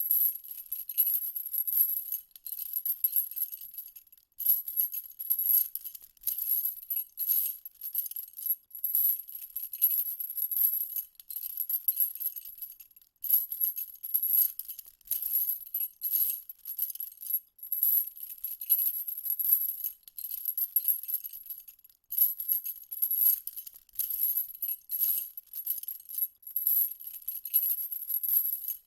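A high, thin jingling rattle, like small metal jingles being shaken, in a repeating rhythm of short shakes, with brief pauses about every nine seconds.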